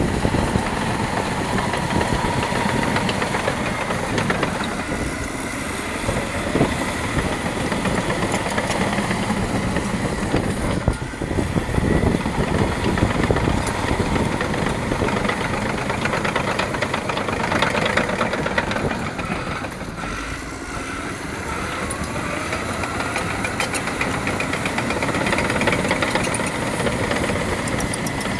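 Caterpillar D6R LGP bulldozer working, its diesel engine running under load with a constant clatter from the tracks. The engine pitch rises and falls several times as the load changes.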